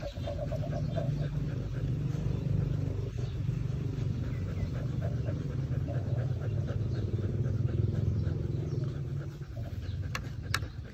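Dog panting steadily in quick, even breaths, over a steady low hum.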